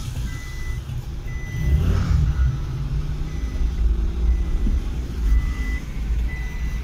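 Low rumble of a car's engine and road noise heard inside the cabin, with a short high electronic beep repeating at intervals.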